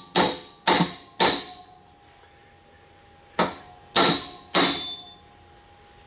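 Brass hammer striking the end of a furnace blower shaft to drive it out, the shaft held tight by a bearing seized onto it. There are six ringing metallic blows in two sets of three, with a pause of about two seconds between the sets.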